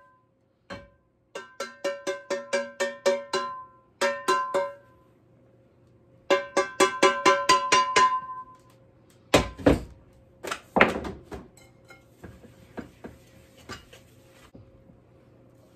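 Wooden spoon beating cornbread batter in a mixing bowl, clinking against the bowl's side with a ringing knock on every stroke, in quick runs of about five knocks a second. Toward the end come two heavier knocks and scraping, then softer, scattered stirring clicks.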